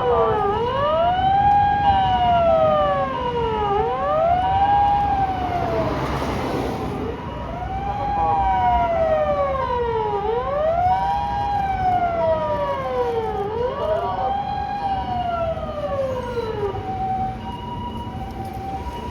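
Japanese ambulance siren on an emergency run: the alternating two-note hi-lo "pee-po" tone with a wail layered over it that rises and falls about every three seconds. Road and engine rumble sit underneath, with a brief rush of noise about six seconds in.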